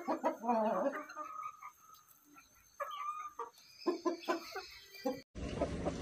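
Aseel game chickens clucking and calling in short bursts, with a wavering call in the first second or two. About five seconds in the sound cuts abruptly to a steady rushing noise.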